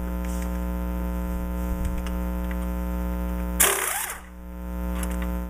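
Steady electrical hum made of many even tones, the recording's own poor sound quality, with a loud, short burst of hissing noise about three and a half seconds in.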